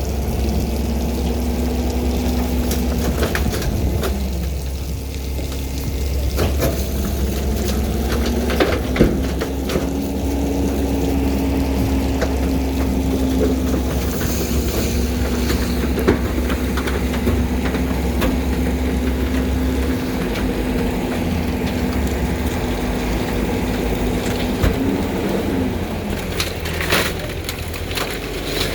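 Heil garbage truck's hydraulic compactor crushing bulky waste: the engine runs under load with a steady hydraulic whine, and wood and debris crack and splinter as they are packed, with a few sharp snaps.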